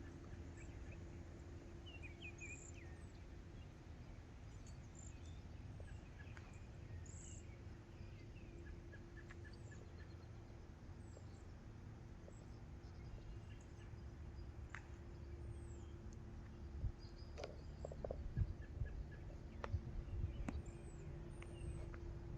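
Outdoor birdsong: many short high chirps and calls from several birds, over a steady low hum and a low rumbling background. A few sharp clicks or knocks come in the last several seconds.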